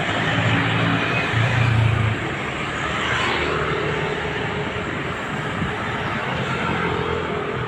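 Road traffic and heavy engines running steadily, with a low engine hum that is loudest for about the first two seconds and then eases off.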